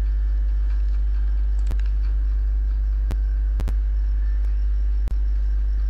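Steady low electrical hum, with five short sharp clicks, two of them in quick succession a little past the middle.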